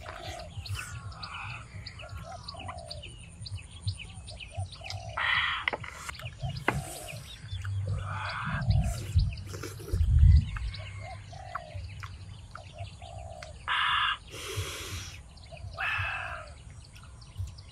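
Birds calling and chirping, with a steady run of short, low, repeated call notes and a few louder higher calls. Dull low thumps come about halfway through, the loudest just after ten seconds in.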